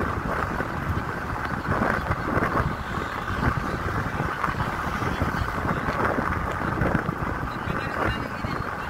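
Steady engine and tyre noise of a moving car on a paved road.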